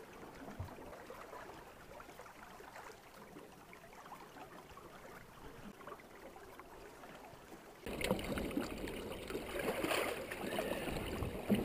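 Quiet river-water hiss, then about eight seconds in a sudden louder wash of water splashing at the side of the boat, close to the microphone, as a steelhead is released.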